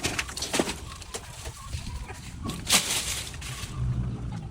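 Chickens clucking, with scattered short rustles and knocks, the loudest a little before three seconds in.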